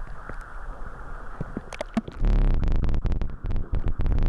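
Muffled underwater sound from a submerged camera: water rumbling and gurgling with scattered clicks and knocks, growing louder and heavier about two seconds in.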